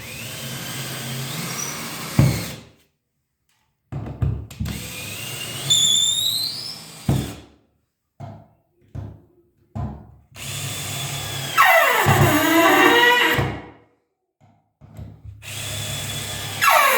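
Power drill driving screws down through wooden floorboards in several separate runs, its motor pitch rising and falling under load. The screws pull the boards down tight to stop them squeaking.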